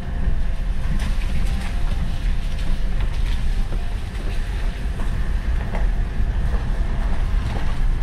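Pickup truck driving along a rough mountain road: a steady low rumble of engine and tyres, with scattered light knocks and rattles from the bumps.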